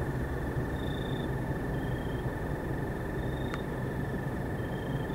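Night insects calling: one continuous high trill, with a shorter higher chirp repeating about every second. Underneath runs a steady low hiss.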